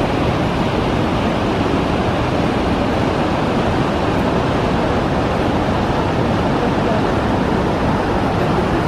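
Waterfall and stream rushing at the bottom of a narrow rock canyon: a loud, steady, even wash of water noise.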